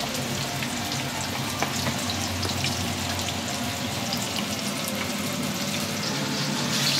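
Flour-coated chicken wings deep-frying in a wok of hot sunflower oil: a steady sizzle with many small crackling pops.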